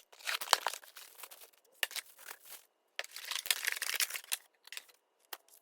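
Packaging being opened by hand: packing material crinkling and tearing in two long stretches, then a few scattered light clicks and rustles.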